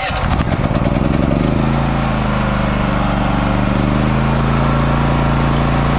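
Champion 100520 inverter generator's engine just started with the choke on. It fires unevenly for about a second and a half, then settles into a steady run.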